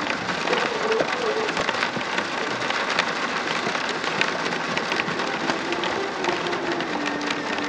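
Steady rain falling: an even hiss dotted with many small clicks of drops.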